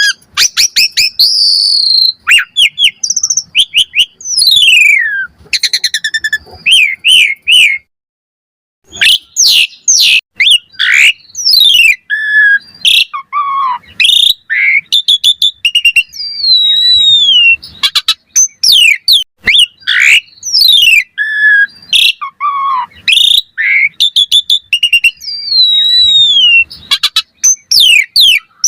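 Asian pied starling (jalak suren) in full song: a loud, varied run of fast whistles, rising and falling glides and rapid chattering clicks, with a brief pause about eight seconds in.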